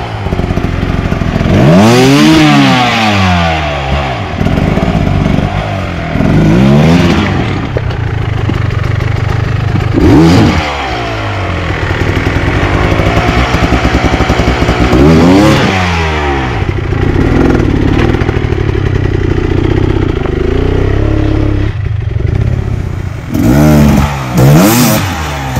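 Enduro dirt bike engine revved hard in repeated bursts, its pitch climbing and dropping sharply about five times, with steadier running in between.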